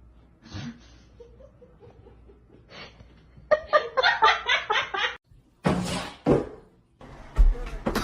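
A person laughing in a quick run of repeated pulses, followed by two short, loud, noisy bursts.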